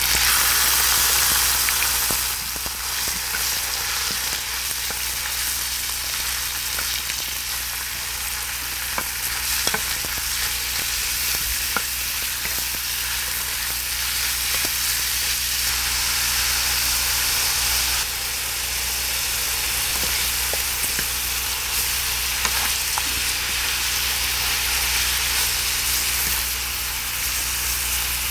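Pork slices sizzling hard as they land on a hot, oiled cast-iron cauldron lid, loudest in the first two seconds, then frying steadily. The pork is tossed with two wooden spatulas, which knock now and then on the iron.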